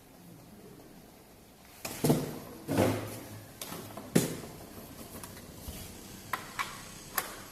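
A few irregular knocks and clunks, with a louder rattling clatter about two to three seconds in, another knock around four seconds, and three short sharp clicks near the end.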